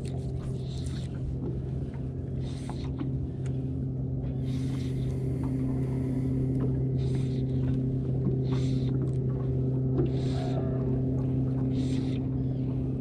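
Minn Kota electric trolling motor running with a steady hum, while short splashy washes of water come every second or two.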